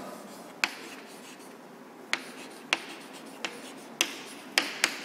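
Chalk writing on a blackboard: faint scratching strokes broken by several sharp taps as the chalk strikes the board.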